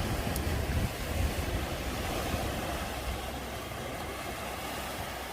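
Ocean surf and wind: a steady low rumble with a hiss over it, slowly getting quieter.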